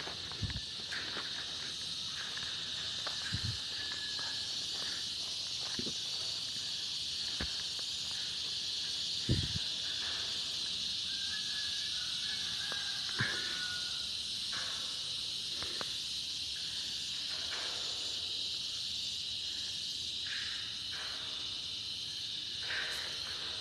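Steady high-pitched drone of insects in the surrounding trees, with a few scattered dull knocks about half a second, 3, 6, 9 and 13 seconds in.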